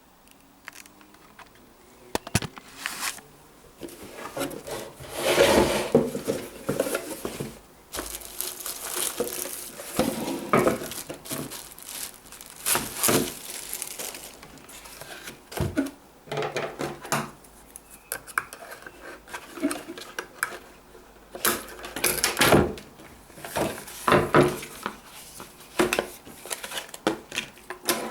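Irregular handling noises as a bicycle saddle is unboxed: packaging rustling and crinkling in swells, with scattered sharp clicks and knocks.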